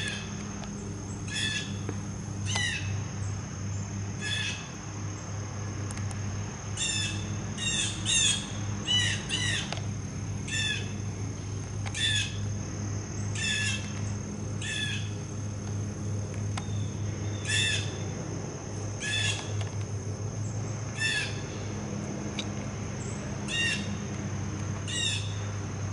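Blue jay giving loud, harsh calls over and over, about twenty in all, some single and some in quick runs of two or three.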